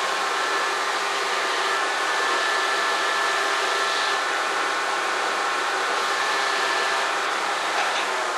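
Electric blower-type motor running at a steady pitch with a thin whine over a loud rushing noise, starting to wind down at the very end.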